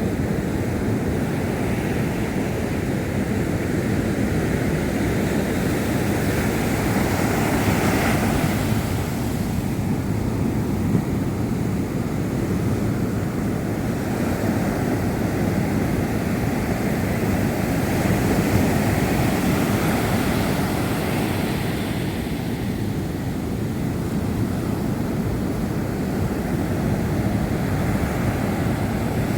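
Sea surf washing in, a continuous rush of waves that swells louder a couple of times.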